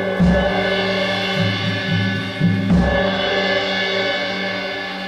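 Live improvised percussion: sustained ringing tones with low strikes, two heavy ones about a quarter second in and near three seconds, and a few softer hits between, the ringing slowly fading.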